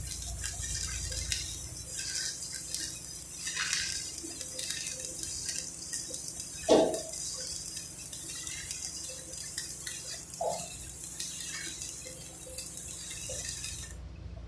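Welding arc hissing and crackling steadily on the pipe, cutting off abruptly near the end. A sharp metallic clink rings out about halfway through, with a fainter one a few seconds later.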